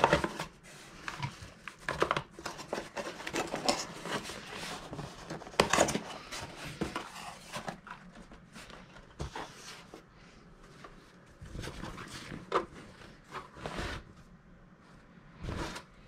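Cardboard box and plastic packaging being handled: irregular rustling and crinkling with light knocks, busier in the first half and sparser later, with a louder rustle just before the end.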